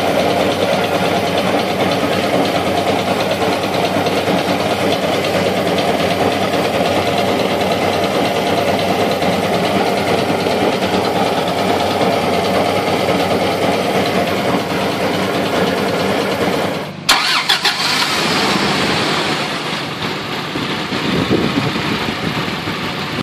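A motor vehicle engine idling steadily. About seventeen seconds in, the sound breaks off abruptly with a few clicks, and a different, fading sound follows.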